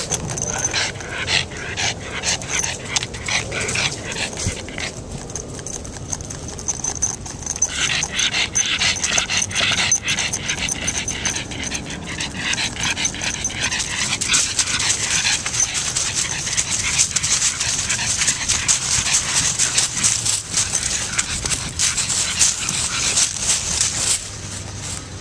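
A pug breathing and panting close up, with many small clicks and rustles throughout.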